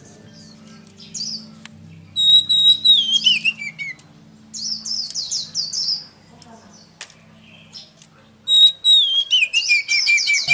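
Songbird song played as a lure to set a silent magpie-robin singing. Three loud phrases: twice a held high whistle that glides down into a run of quick notes, with a short burst of rapid warbled notes between them, over faint steady low tones.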